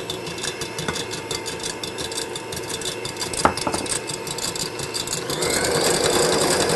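Kenwood Chef Titanium stand mixer running at high speed, its whisk beating egg whites into a meringue as sugar is added. There is a light tap about three and a half seconds in, and the mixer grows louder from about five seconds in.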